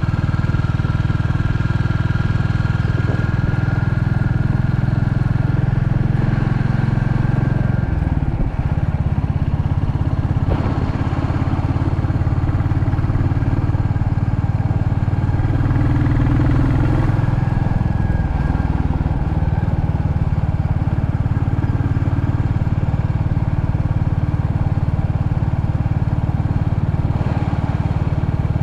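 Royal Enfield Classic 350 single-cylinder motorcycle engine running steadily while riding. The engine note drops briefly about eight seconds in, then picks up again.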